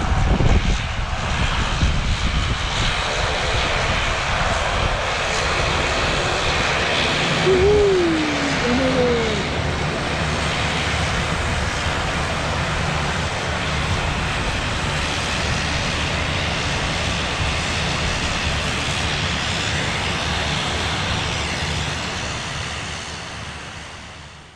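Engines of a small turboprop airliner at take-off power, running as a steady drone as it rolls away down the runway and climbs out. The noise holds level, then fades out near the end.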